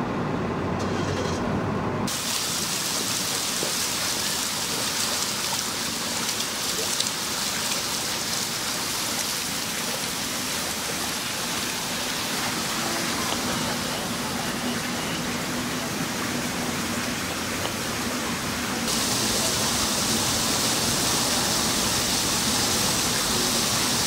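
Water gushing in a steady rush of noise, louder from about nineteen seconds in. It is flood water in an apartment building, from what a firefighter names as a possible cause: frozen pipes.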